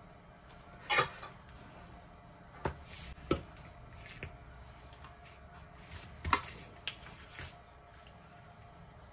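Scattered knocks and clicks of small parts and tools being handled on a workbench. There are about half a dozen sharp taps, the loudest about a second in and another a little after six seconds in.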